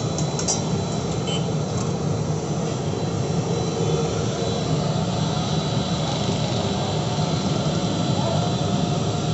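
Steady mechanical roar and whir of a busy street-food kitchen, running without a break, with a thin high whine over it.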